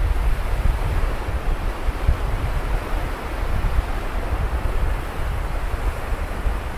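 Sea surf washing onto a beach, recorded outdoors, with wind on the microphone as a steady low rumble.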